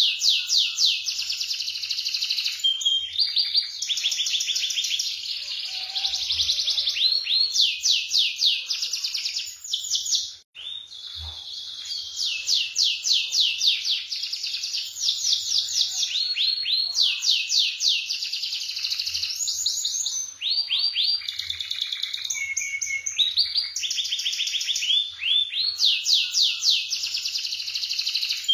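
Domestic canary singing continuously in long runs of rapid rolling trills and sharp high notes, with a brief pause about ten seconds in.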